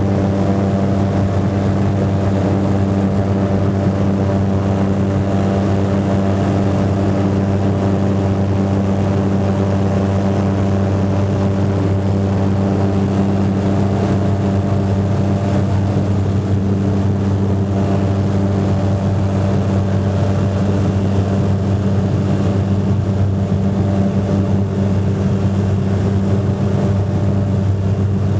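Ski plane's propeller engine droning steadily, its pitch unchanging, with a thin high whine above the drone.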